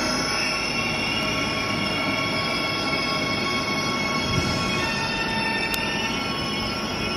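A train running past, its wheels squealing on the rails with several steady high-pitched tones over the rumble of the running gear.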